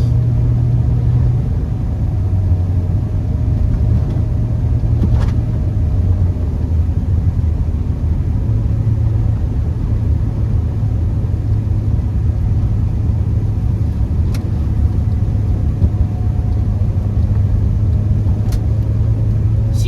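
Honda Accord driving uphill on a snowy road, heard from inside the cabin: a steady low engine and road drone, with a few faint clicks.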